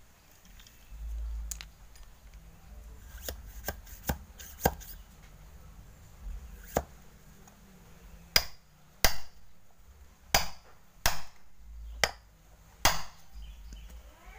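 Sharp knocks of a metal rammer packing soil into a paper firework tube to form a hard, compacted plug. A few light taps come first, then six loud strikes in the second half.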